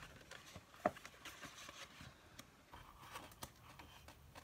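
Faint rustling and light tapping of sheets of patterned scrapbook paper being handled and turned over, with one sharper tap about a second in.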